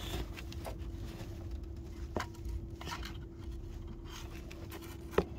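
Small handling noises: scattered light clicks and scrapes, with a sharper click near the end, over a steady faint hum.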